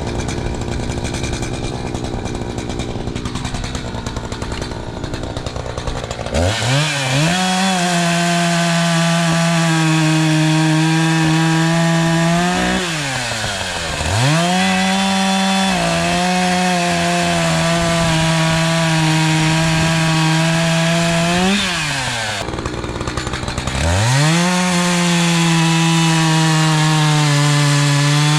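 ECHO CS-590 Timberwolf two-stroke chainsaw idling at first, then revved to full throttle three times in long stretches of cutting. The engine holds a steady high pitch through each cut and drops back toward idle briefly between them.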